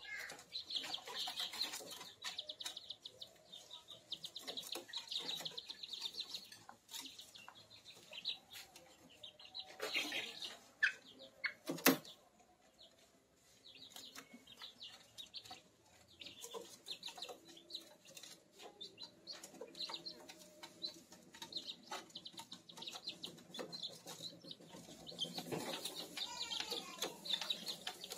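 One-month-old kampung chicks peeping and chirping in rapid high runs, with softer lower calls in between. Scattered sharp clicks and scuffles throughout, the loudest a single click about twelve seconds in.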